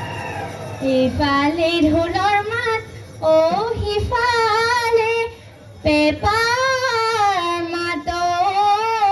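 A young woman singing a Bihu song solo, with almost no accompaniment: long held notes with a fast quavering ornament, in three phrases with short breaths between.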